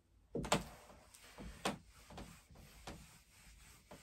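Several short, faint rubbing and scraping sounds, the strongest about half a second in, with fainter ones following about every half second to second.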